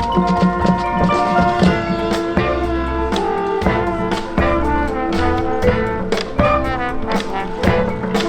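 High school marching band playing: brass sections holding and moving through sustained chords over a steady beat of drums and percussion hits.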